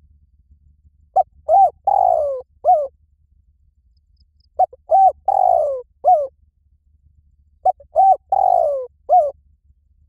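Spotted dove cooing: three calls, each a phrase of four notes with a longer falling note third, repeated about every three seconds.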